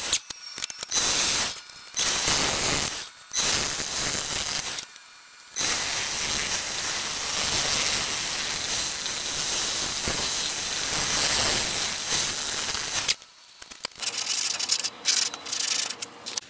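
Lathe gouge cutting a spinning piece of root wood: a steady hiss of shavings peeling off, broken by several short pauses as the tool lifts in the first few seconds. The cutting stops about thirteen seconds in, leaving faint rubs and knocks of the piece being handled.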